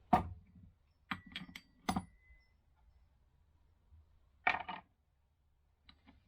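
Small metal parts clinking together: a sharp clink, then a quick run of clinks with a brief metallic ring, and another short rattle about four and a half seconds in.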